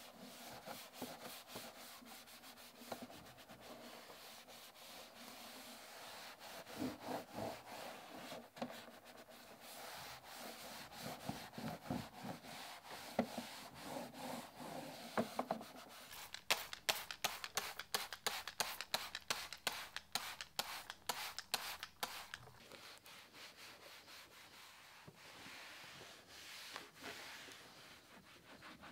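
A cloth wiping over the plastic engine cover of a Mercedes SL500 engine bay, a steady rubbing. Past the middle there is a stretch of quicker, sharper wiping strokes.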